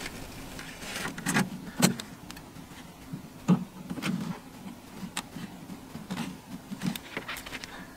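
Scattered light clicks and knocks of pliers and a spring hose clamp being worked onto a rubber fuel line by hand, with soft handling noise between them; the sharpest clicks come about two and three and a half seconds in.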